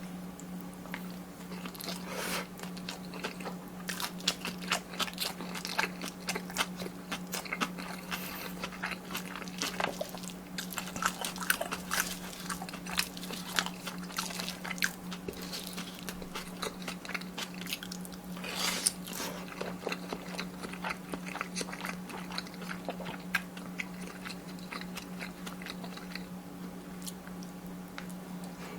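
Close-miked eating of kimchi fried rice: a steady run of chewing and biting with many small crunchy, wet clicks. A steady low hum sits underneath.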